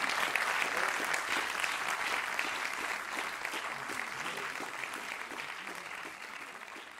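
Audience applauding, the clapping gradually thinning and fading away.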